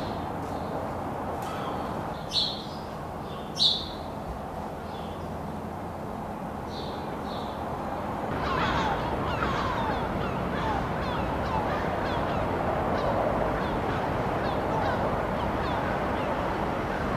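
Birds calling over a steady background rumble: two loud sharp chirps a few seconds in, then from about eight seconds in a dense chatter of many short falling calls.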